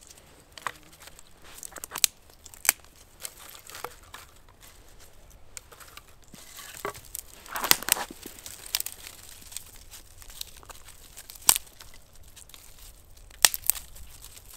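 Dry twigs being snapped and laid onto an unlit fire lay. Scattered sharp snaps a second or more apart, with crackly handling in between that is busiest around the middle.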